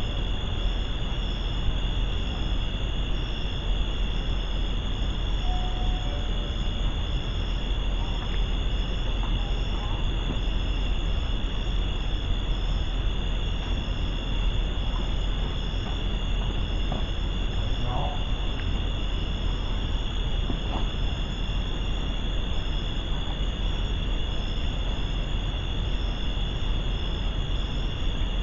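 Night insects such as crickets trilling steadily, with a continuous high trill and a pulsing chirp above it, over a constant hiss.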